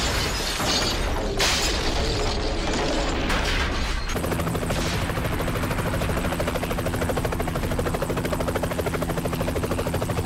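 Explosion and fire blast with debris crackling for about the first four seconds. Then a helicopter is heard running, its rotor beating fast and evenly over a steady low hum.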